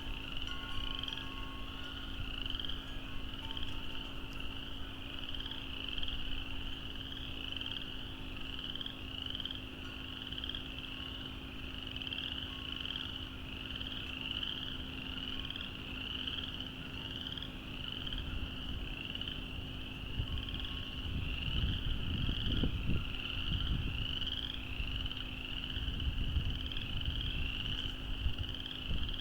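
A chorus of many frogs calling without a break, high rising peeps repeated over and over. A low rumble comes in about three-quarters of the way through.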